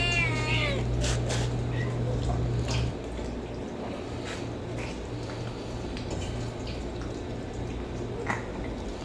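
A kitten meows once at the start, a single call falling in pitch, followed by scattered small clicks. A low hum runs underneath and stops about three seconds in.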